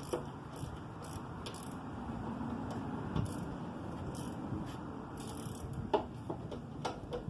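Irregular metallic clicking and scraping of hand tools and parts being worked on a motorcycle, with a few sharper clicks near the end.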